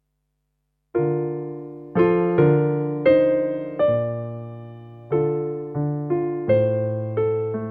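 Silence for about a second, then piano-sounding keyboard music: chords struck one after another, each ringing and fading before the next.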